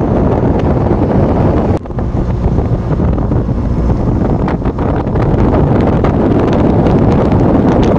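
Loud wind buffeting the microphone of a camera riding in a moving vehicle, with the vehicle's road noise beneath it. The noise drops briefly just under two seconds in.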